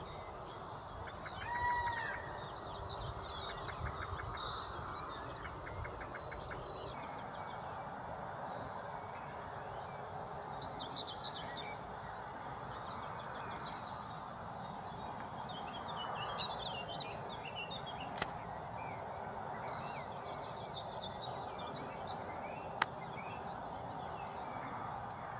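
Outdoor dawn chorus: several songbirds repeating short trilled phrases every second or two over a steady rushing background, with one louder call about two seconds in and two sharp clicks later on.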